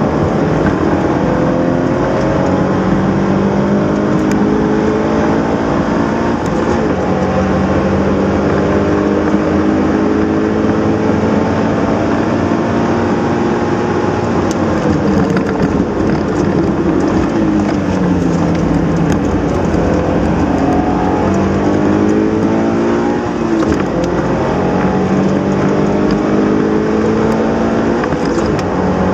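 Subaru BRZ's 2.0-litre flat-four engine under hard acceleration on a race lap, revving up and dropping in pitch with each upshift. About halfway through, the engine note falls steadily as the car slows, then climbs through the gears again.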